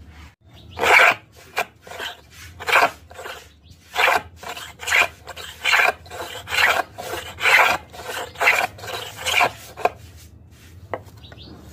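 Homemade wooden hand plane cutting shavings from a wooden strip: a run of rasping strokes, roughly one a second, which stops near the end.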